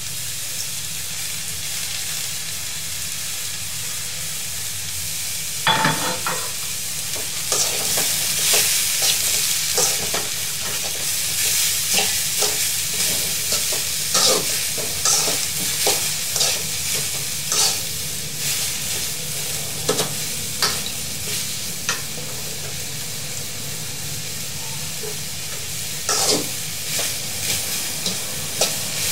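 Cauliflower, carrot, onion and green chilli sizzling in a hot metal pan with a steady hiss. From about six seconds in, a spatula scrapes and knocks against the pan as the vegetables are stirred.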